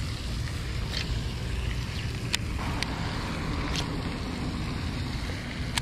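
Wind buffeting the microphone: a steady low rumble and hiss, with a few short sharp clicks over it.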